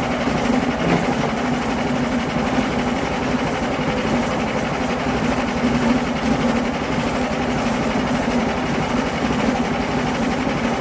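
Sawmill running steadily with an even mechanical drone, cutting a yellow pine log.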